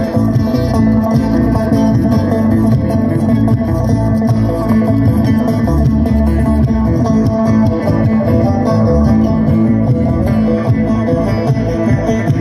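Live bluegrass band playing loud through a PA, with picked acoustic guitar and banjo over a steady bass line, heard from within the crowd.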